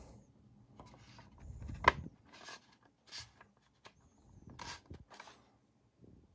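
Handling noise from the plastic housing of a Bodum electric coffee grinder being turned over by hand: several short rubs and scrapes, with one sharp plastic click about two seconds in.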